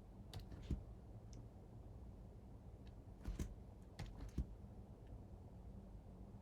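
Scattered faint clicks and taps of computer input devices, a mouse or keyboard being worked, over a low steady hum.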